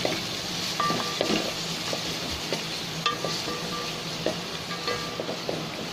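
Diced carrots, capsicum and peas sizzling in hot oil in a metal pot while a wooden spatula stirs them, with occasional scrapes and knocks of the spatula against the pot.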